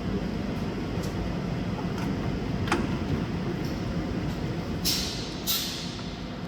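Machinery running steadily, with a few sharp clicks and two short hisses of compressed air about five seconds in, typical of a pneumatic machine cycling.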